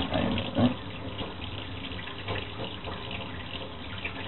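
Kitchen tap running steadily into a stainless steel sink as a skinned duck carcass is rinsed by hand under the stream.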